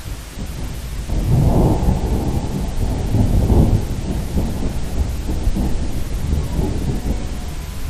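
Thunder rumbling in a thunderstorm: it starts about a second in, swells twice and keeps rolling, over a steady hiss of rain.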